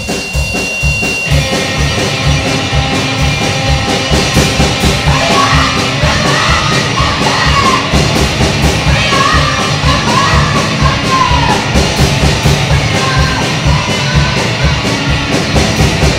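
Live fastcore band playing at speed: rapid drumming under distorted guitar, with vocals coming in over the middle stretch.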